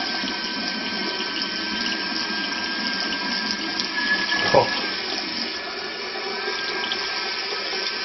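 Water running steadily from a bathroom tap through an LED temperature-sensing aerator into a ceramic basin and down the drain. A brief, louder sound comes about halfway through.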